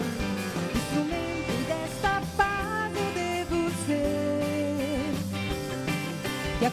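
A woman singing with a live band of acoustic guitars, electric bass, keyboard and drums. She holds long notes, one with a wavering vibrato past the middle.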